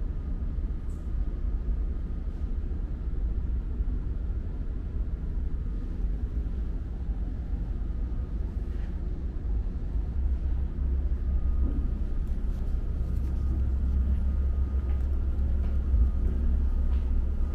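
Steady low rumble of the ferry's engines and hull, heard from inside the ship, growing a little louder about two-thirds of the way through, with a faint steady high whine above it.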